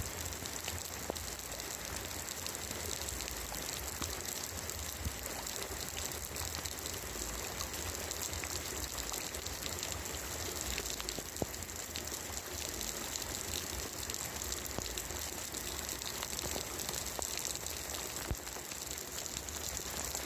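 Rain falling on roof tiles: a steady hiss of water with many sharp ticks of single drops striking the tiles, one louder tick about eleven seconds in.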